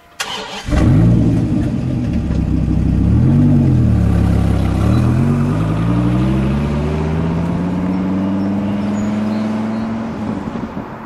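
Dodge Viper V10 starting up, giving one short blip of the throttle, then pulling away with its engine note climbing steadily as it accelerates, easing off near the end.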